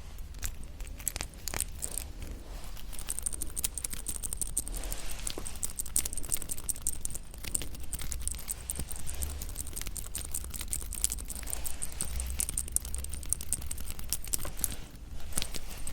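Close-miked ASMR handling of yanggaeng (sweet red bean jelly) and its packaging: a dense, continuous run of small clicks, crinkles and tearing sounds.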